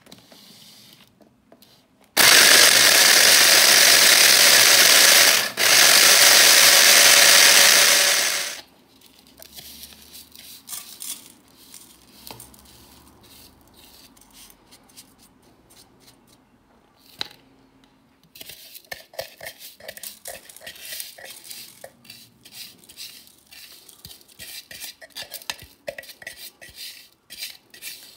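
Electric mini chopper running to grind cookies into crumbs: a loud, steady motor run of about six seconds, broken once briefly in the middle. Then a spatula scrapes and taps the crumbs out of the plastic chopper bowl into a springform pan, a long run of light scrapes and clicks.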